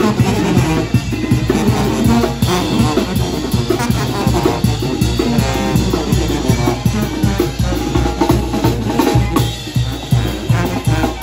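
Marching brass band playing, with tubas and horns over snare drum, bass drum and cymbals keeping a steady beat.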